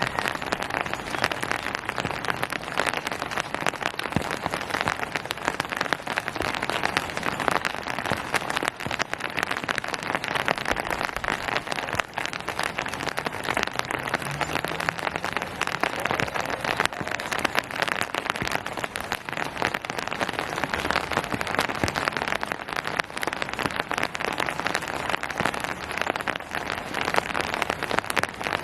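Steady rain falling on surfaces, a dense, even patter of many drops with no pauses or changes.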